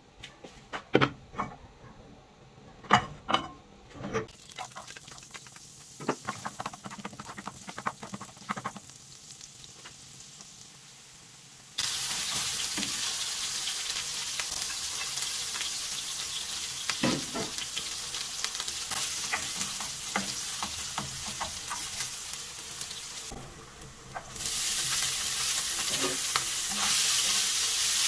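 Utensils clinking and knocking against pans, then about twelve seconds in a sudden loud sizzling as diced onion fries in hot oil in a frying pan, with a spatula knocking as it is stirred. Near the end the sizzling grows louder as ground meat fries in the pan.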